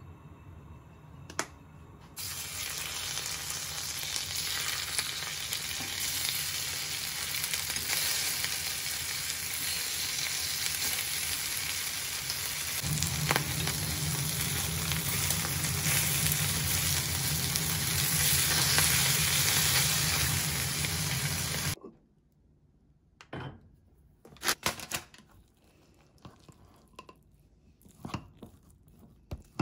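Salmon pieces sizzling as they fry in oil in a pan. The steady sizzle starts about two seconds in and cuts off suddenly after about twenty seconds. Then come faint scattered scrapes and taps of a rice paddle mixing cooked rice in a pot.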